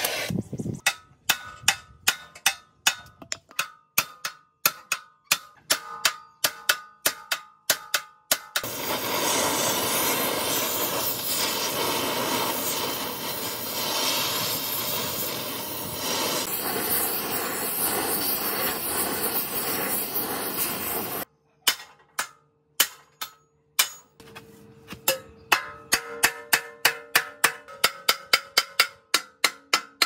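Rapid hammer blows ringing on the steel of a rusty concrete mixer's drum pulley and frame, about three a second. These give way to a steady rushing hiss lasting some twelve seconds. After a short pause the ringing hammer strikes come again, a little slower.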